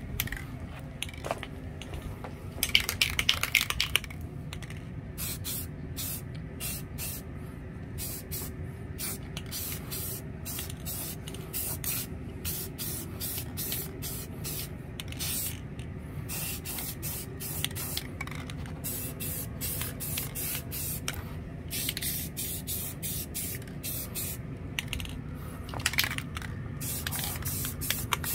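Aerosol spray paint can spraying in many short hissing bursts, one after another, as a brake caliper is coated. A louder clatter comes about three seconds in.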